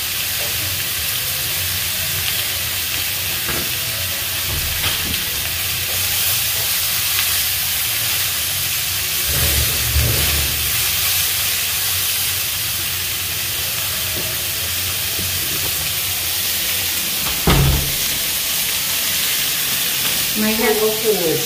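Squash and long string beans stir-frying in a nonstick wok over a gas burner: a steady sizzle with a spatula stirring through the vegetables. There are a few low knocks, the loudest about seventeen seconds in.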